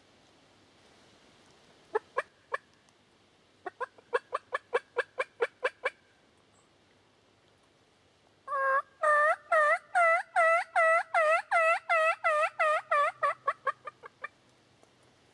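Series of turkey yelps: three about two seconds in, a run of about a dozen softer ones shortly after, then a long, louder run starting past the middle that quickens and fades out near the end.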